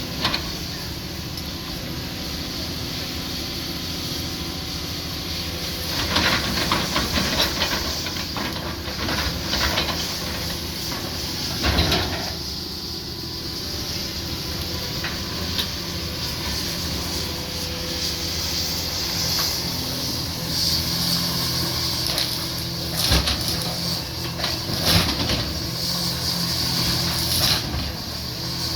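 A heavy machine's engine running steadily, with several short, louder bursts of cracking and crashing as branches break.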